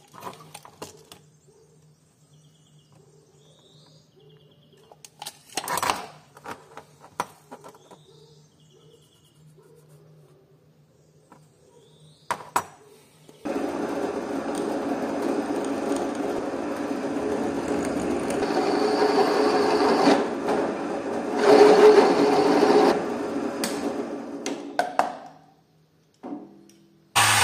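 A few scattered knocks of metal parts being handled, then an electric power tool switched on about halfway in, running steadily for about eleven seconds. It gets louder for a moment near the end and then runs down.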